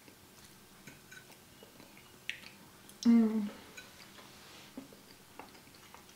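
Quiet eating: small clicks of forks on plates and chewing. About three seconds in, a short hummed "mmm" of approval, the loudest sound.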